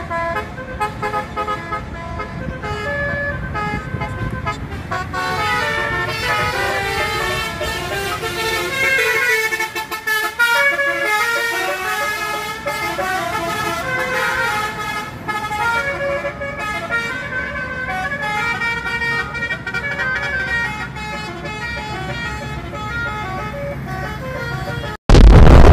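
Tour buses' 'telolet basuri' multi-tone musical air horns playing stepping melodies over the rumble of bus engines. A sudden, very loud blast of noise cuts in at the very end.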